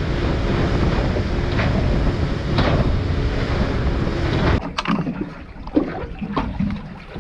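Small boat running over open sea: loud, steady wind buffeting and water-rush noise with the motor underneath. About halfway through it cuts off suddenly to a quieter background with a few sharp clicks and knocks as longline is paid out from a hand reel.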